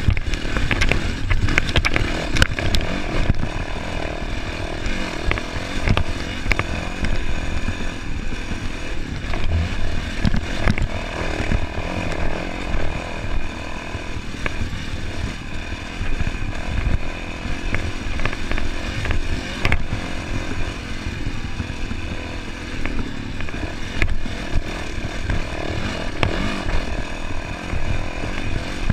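Off-road dirt bike engine running under way along a rough dirt trail, its engine note steady with small rises and falls of the throttle, and short knocks and rattles scattered throughout.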